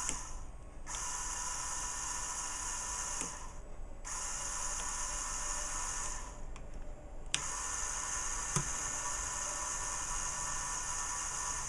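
Small Lego electric motor running with a steady whine as it turns the helicopter's rotor. It is switched off and back on three times, each pause under a second.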